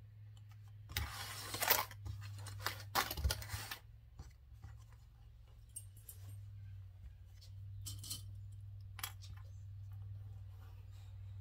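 Cotton fabric rustling as it is handled and smoothed, in two bursts about one and three seconds in, then a few short clicks as small plastic sewing clips are snapped onto the fabric edges. A steady low hum runs underneath.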